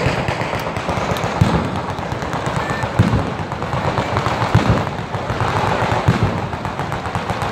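Italian ground-level firework batteria going off: a dense, rapid, unbroken crackle of firecracker bangs, with heavier booms standing out about every second and a half.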